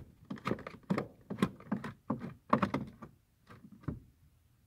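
Long Phillips screwdriver turning a blower motor resistor screw behind the dashboard: a run of irregular clicks and knocks from the tool at the screw and housing, thinning out after about three seconds.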